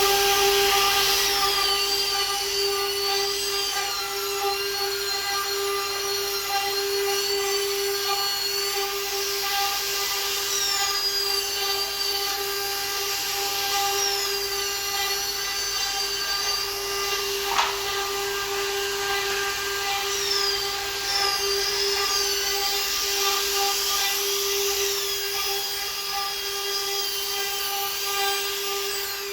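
CNC wood router running, its high-speed spindle whining at a steady pitch while the bit cuts wood. Higher tones rise and fall again and again as the cut changes, and there is one sharp click about seventeen seconds in.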